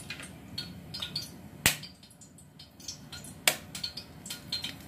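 Eggs being cracked into a stainless-steel bowl: two sharp taps of eggshell against the bowl, about one and a half and three and a half seconds in, with small clicks of shell and bowl between.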